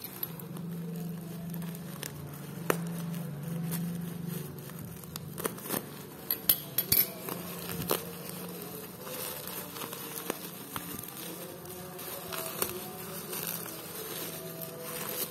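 Scattered clicks and taps of a parcel being handled and opened, loudest in a cluster about midway, over a steady low buzz.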